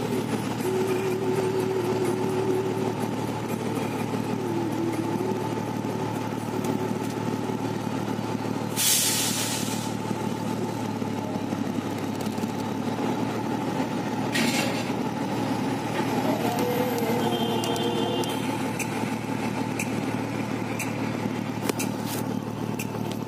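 Heavy truck engine idling and creeping in a queue, a steady drone. There is a loud air-brake hiss about nine seconds in and a shorter one at about fourteen seconds.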